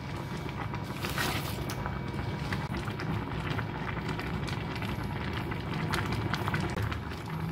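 A pot of stew boiling, bubbling steadily with many small crackles and pops. About a second in, a brief rustling burst as a handful of sliced green onions is dropped into the pot.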